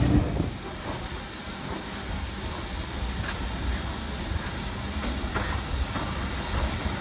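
Steam locomotive close by: a steady hiss of steam over a low rumble, with a couple of faint metallic clicks.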